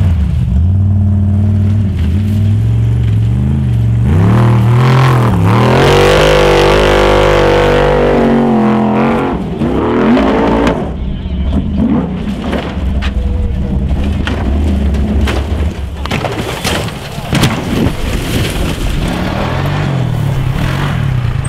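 Formula Offroad car engines revving hard under full throttle. The pitch sweeps up and down while the car climbs the sand hill, then gives way to choppy on-off throttle blips with sharp cracks in the second half.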